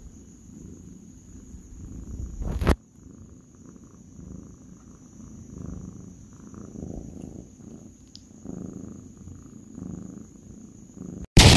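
Domestic tabby cat purring close to the microphone, a low rumble that swells and fades with each breath. Near the end a sudden loud boom cuts in.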